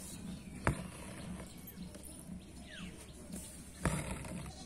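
Quiet background ambience with faint, short bird chirps, and two sharp clicks, one under a second in and one near the end.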